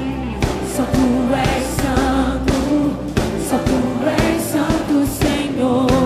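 Live gospel worship song: singing over a full band, the music continuing without a break.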